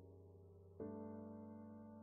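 Quiet, slow background music of soft, sustained piano chords. A new chord is struck about a second in and fades slowly.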